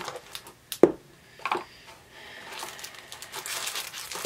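Handling of a wig cap's plastic packaging: two sharp clicks about a second in, then soft rustling and crinkling that builds near the end.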